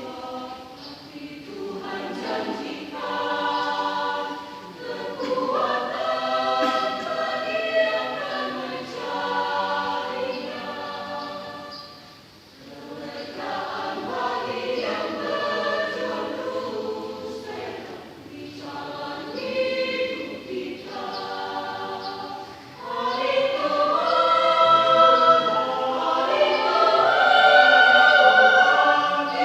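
Church choir singing a hymn in several voices. The singing dips briefly about twelve seconds in and grows louder from about twenty-three seconds.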